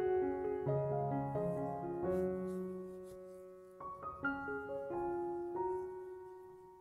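Gentle background piano music, with single notes and chords struck and left to ring and fade.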